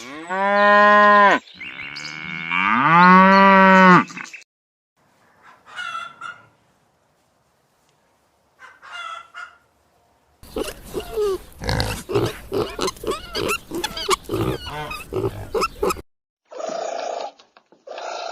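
A series of farm animal calls. Two long pitched calls come first, the second bending up in pitch. Short calls follow, then about five seconds of a dense, rough run of calls, and two brief calls near the end.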